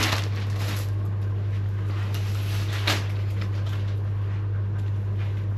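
Steady low hum of room noise, with a brief rustle of plastic packaging at the start and a single short crinkle about three seconds in.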